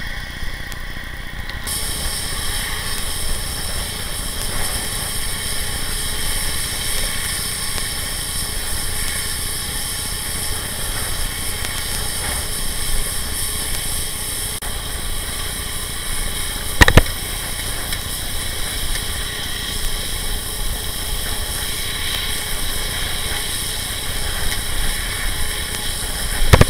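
Steady rushing wind and road noise on a camera riding along on a bicycle, a low rumble under a constant hiss. Two sharp knocks break it, one about two-thirds of the way through and one at the end.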